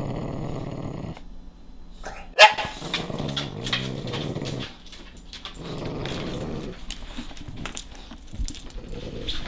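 A French bulldog growling in low, rough bursts while guarding its bone, three times over several seconds, with one sharp loud bark a couple of seconds in.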